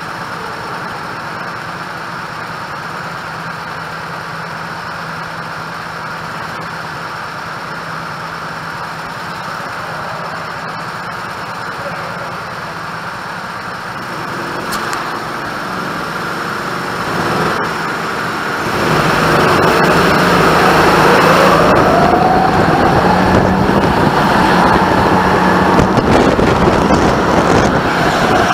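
Go-kart engines heard from the driver's seat, running steadily and fairly quietly at first, then getting louder over a few seconds and, about two thirds of the way in, jumping up as the karts accelerate, with rising pitch. The hall adds some echo.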